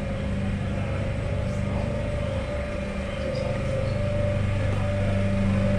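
Stationary Rhaetian Railway ABe 8/12 Allegra electric multiple unit humming at the platform: a steady low electrical hum with a fainter higher tone over it, growing a little louder near the end.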